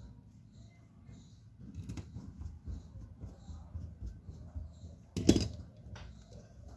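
Hands handling an opened smartphone and small tools on a silicone repair mat during reassembly: a screw driven in with a precision screwdriver, light rustling and small clicks, and one sharp clack about five seconds in, the loudest sound.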